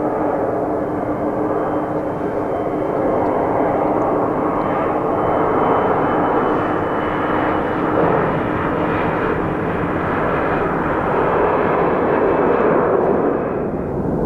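Thai Airways Boeing 747-400's four jet engines at high thrust on the takeoff roll: a loud, steady jet-engine rush with a faint steady hum in the first half, dipping briefly near the end.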